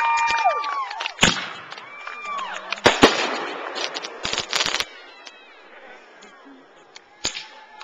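Aerial fireworks going off: sharp bangs about a second in and at three seconds (the loudest), a quick run of cracks with crackling just before five seconds, and one more bang near the end.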